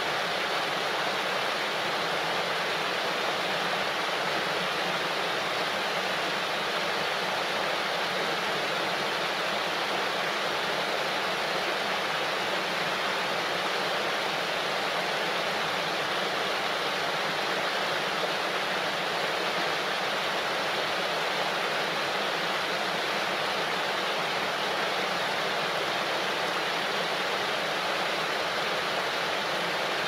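Waterfall: water falling and rushing over rocks into a stream, a steady even rush that does not change.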